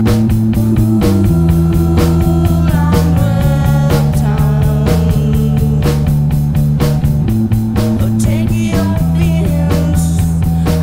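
Background rock music with a steady beat and held bass notes that change every second or so.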